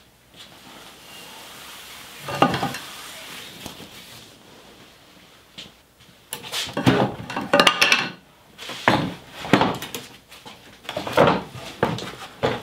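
A cloth cover rustling as it is pulled off, with a thump, then a run of loud wooden knocks and clatters as the heavy wooden parts of an old hand-powered band saw are handled and set down on a wooden workbench.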